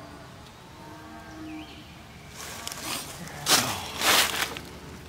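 Rustling and scraping from movement close to the microphone as the camera is reached for and handled, in a few loud bursts past the middle, after a faint murmur of voice.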